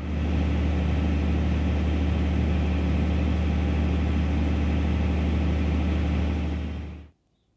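Large farm tractor's diesel engine running steadily at an even speed, a low constant drone that cuts off suddenly near the end.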